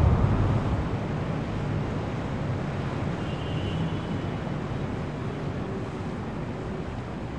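Steady rushing, wind-like noise that slowly fades, with a faint high chirp about three seconds in.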